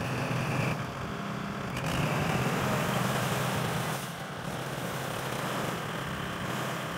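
Tractor diesel engine running steadily as it tills a flooded rice paddy, coming close so it grows louder for a couple of seconds, then dropping off about four seconds in.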